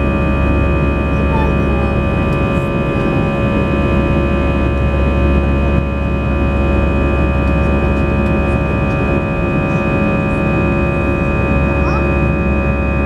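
Cabin noise of an Airbus A319 climbing after takeoff: the steady drone of its CFM56 turbofan engines, several steady whining tones over a deep rumble.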